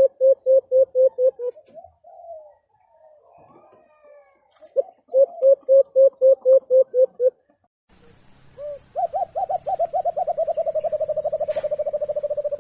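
Alimokon dove cooing: two quick runs of about ten short, low coos, then a longer run of faster coos that carries on almost to the end.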